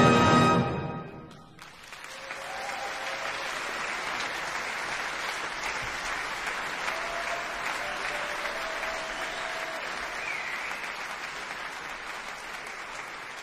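A brass band's final held chord cuts off within the first second and rings out in the hall, then audience applause starts about two seconds in and carries on steadily, fading a little near the end.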